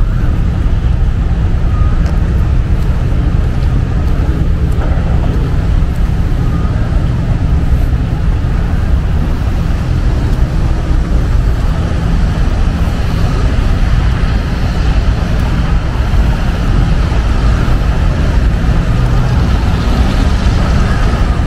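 Steady low rumble of road traffic, unbroken, with an even hiss above it.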